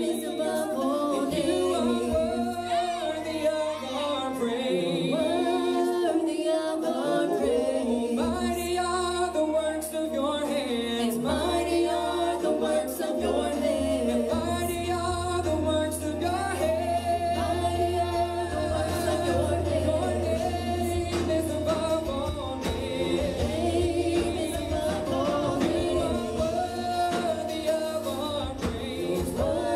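Several voices of a worship team singing a gospel praise song together, the melody moving continuously, over long held low bass notes that change a few times.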